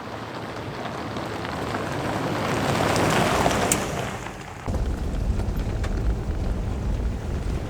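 A 2004 100 Series Land Cruiser driving a gravel forest road: tyre and gravel noise swells to a peak about three seconds in and fades. A little past halfway, a steady low rumble of engine and road noise takes over.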